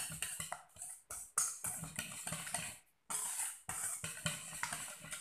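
Wire whisk beating eggs and powdered sugar in a stainless steel bowl: rapid, irregular clinking and scraping strokes of the wires against the metal, with a brief pause about three seconds in.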